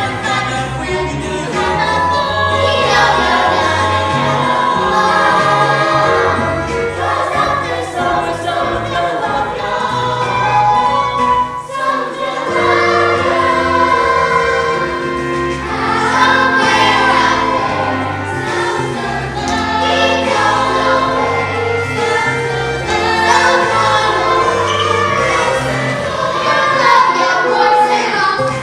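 Cast of voices singing a musical-theatre number together in chorus, over an instrumental accompaniment with a steady bass line.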